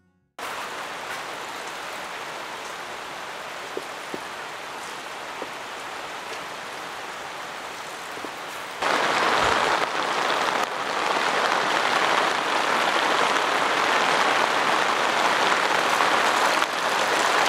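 Heavy rain pouring down in a steady hiss, with a few single drops ticking. About nine seconds in it suddenly gets much louder as the cloudburst comes down harder.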